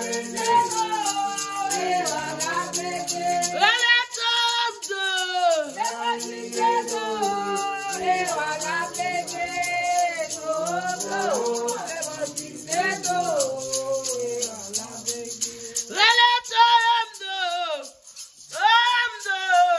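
A woman singing a Vodou chant in long, sliding phrases, over a hand rattle shaken in a steady rhythm.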